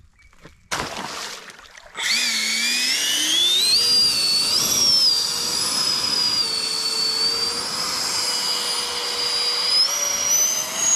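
Electric RC airboat's motor and air propeller whining at high throttle, starting about two seconds in after a short rush of noise. The pitch climbs over the next few seconds, holds steady, and rises again near the end.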